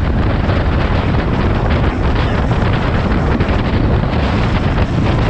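Wind buffeting the microphone of a two-wheeler ridden at about 86 km/h, with vehicle noise underneath: a loud, steady rush with no breaks.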